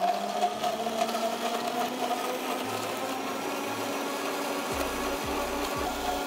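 Hamilton Beach Professional juicer mixer grinder running at one steady speed, its motor whining evenly as the blade churns coconut chunks, grilled pineapple and coconut water into juice.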